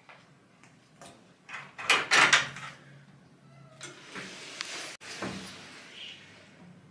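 Wooden front door: a quick run of loud knocks about two seconds in, then the latch clicks and the door is pulled open.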